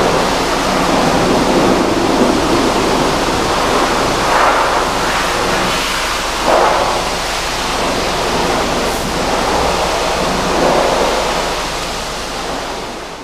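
High-pressure washer jet spraying mud off a vehicle's wheel: a loud, steady hiss of spray that swells a few times as the jet moves over the wheel and arch.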